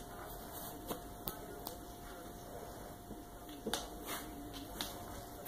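Quiet room with a faint steady hum and a handful of short, faint clicks and taps scattered through it.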